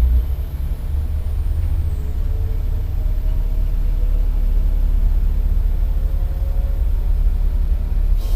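Kobelco SK210 excavator's diesel engine running steadily, a low rumble.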